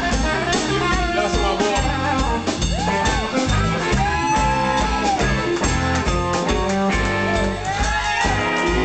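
Live blues band playing: drum kit and bass driving a steady beat under a lead line that swoops up and down in pitch several times.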